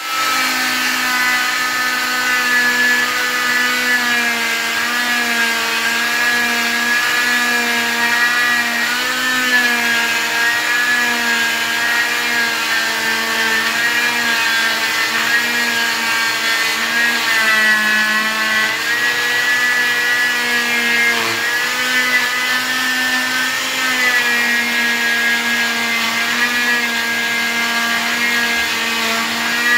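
Oscillating cast saw running steadily as it cuts through a blue fiberglass leg cast, its pitch dipping and rising as the blade meets the cast.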